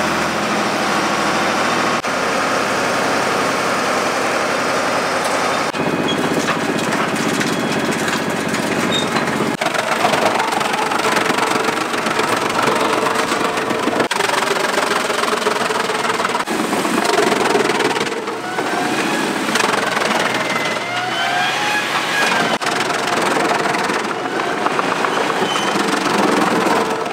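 Heavy machinery running, with the sound changing abruptly every few seconds: a truck tipping a load of wood chips, then a wood shredder's toothed rotor grinding wood into chips. A gliding whine runs for a few seconds past the middle.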